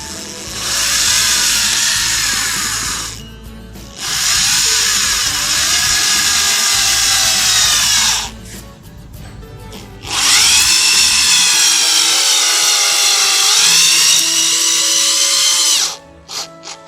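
Corded power screwdriver's motor running in three long bursts while driving a screw, its whine dropping in pitch as it comes under load and climbing again.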